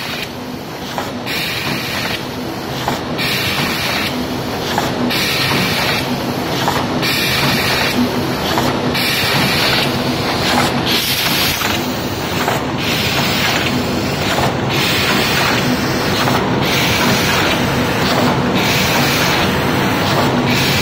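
Automatic paper takeout box forming machine with wire-handle fitting running at about 32 boxes a minute: steady mechanical clatter with a hiss that breaks off briefly about every two seconds, once per machine cycle.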